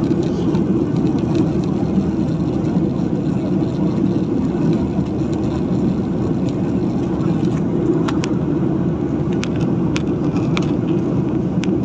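Steady airliner cabin noise in cruise flight, the low rumble of the engines and airflow heard inside the cabin. A few faint clicks in the second half.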